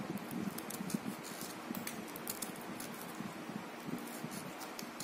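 Small carving knife cutting V-shaped grooves into a hand-held piece of watermelon rind: scattered faint, crisp clicks and scrapes of the blade over a steady low hiss.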